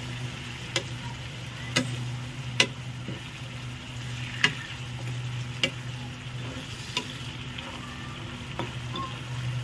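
Minced meat and onions sizzling in oil in a non-stick frying pan, stirred with a slotted metal spatula that clicks and scrapes against the pan about seven times at an irregular pace.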